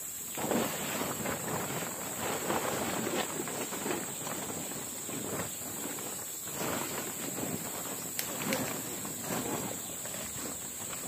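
Insects droning steadily at a high pitch, with irregular rustling and footsteps close by.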